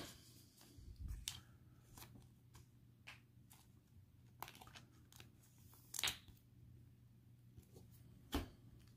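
Faint rustling and light clicks of a trading card being handled and slid into a soft plastic sleeve, with a slightly louder rustle about six seconds in and a short tap near the end.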